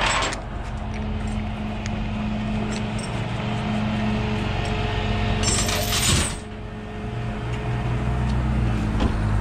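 A vehicle engine idling steadily, with a few light metallic clicks and a brief loud hiss about five and a half seconds in.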